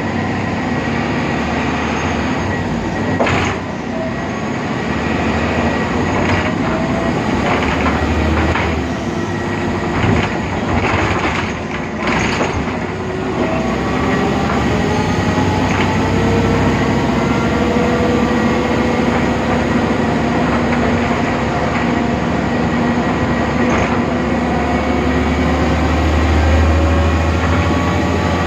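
BredaMenariniBus Avancity Plus city bus running: its Deutz diesel and ZF 6HP Ecomat automatic gearbox whine, the pitch climbing slowly as the bus gathers speed, with a thin steady high whine throughout. Knocks and rattles come in the first half, and a heavier low rumble near the end.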